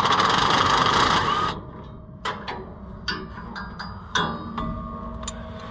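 Cordless mini impact wrench hammering on a nut in a rapid burst that stops about a second and a half in. Scattered metal clicks and taps follow as the socket and tool are handled.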